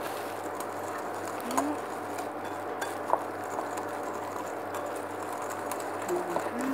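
Wire whisk stirring a dry flour mixture in a glass bowl: a soft, steady scratchy rustle with a couple of light clicks.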